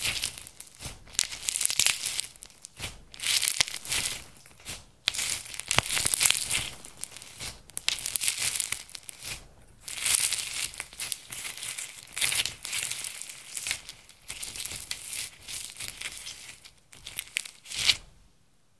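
Hands squeezing, pressing and folding a large batch of glittery slime: a series of wet, squishing handling sounds, each stroke about a second long, that stop shortly before the end.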